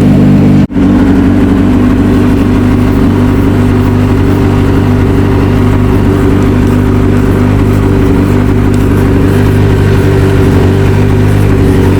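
Ford Escort RS Cosworth's turbocharged four-cylinder engine idling steadily, likely warming up from a cold start after its rebuild. The sound cuts out for a split second under a second in.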